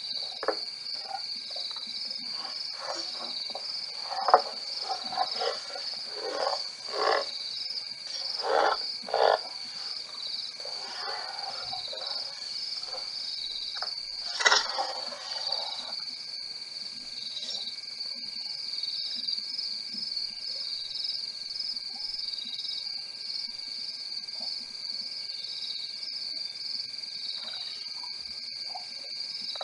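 Night insect chorus trilling steadily at a high pitch. During the first half a run of short, louder calls or knocks sounds over it, loudest about four seconds and fourteen seconds in.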